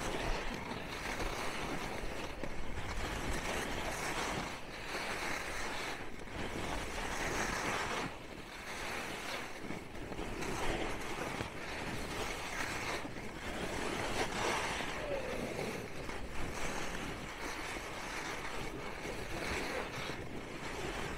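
Skis scraping and carving across packed, groomed snow, a noisy swoosh that swells with each turn about every two seconds, mixed with wind noise on the microphone.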